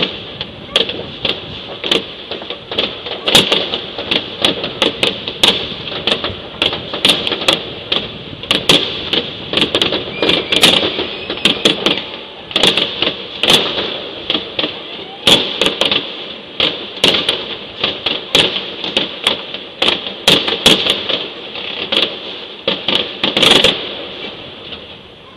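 Fireworks going off all over a town at New Year: irregular sharp bangs and crackles, several a second, with no let-up.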